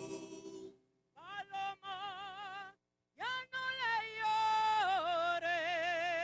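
Mexican folk music: a singer holds long notes with wide vibrato, each phrase sliding up into its first note, with two short breaks near the start.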